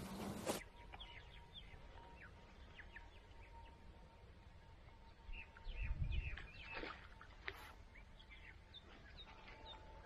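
Small birds chirping: many short, high chirps scattered throughout, over a faint steady tone. A low rumble about six seconds in is the loudest sound.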